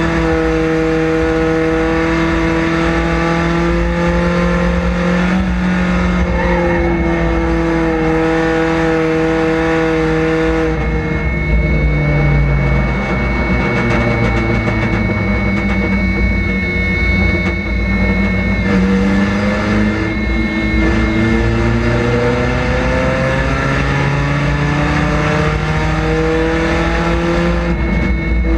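Chevrolet Cavalier street stock race car's engine heard from inside the cockpit under racing load. The engine note holds steady, falls away about eleven seconds in and stays low for several seconds, then climbs steadily back up through the second half.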